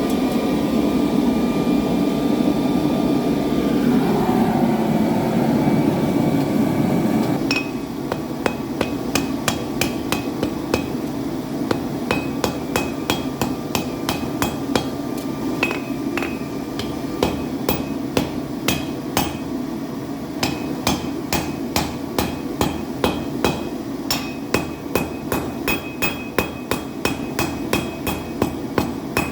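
A steady rushing noise for the first seven seconds or so. Then a hammer starts striking steel on an anvil in a rapid, uneven rhythm of about two to three ringing blows a second, as the steel is forged.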